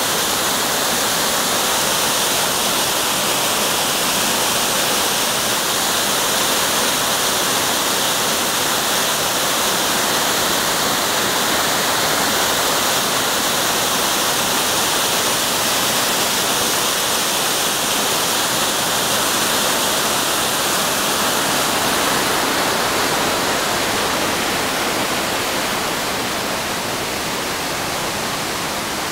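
Yoro Falls waterfall in heavy flow, its water crashing down in a loud, steady rush. The rush eases slightly a few seconds before the end.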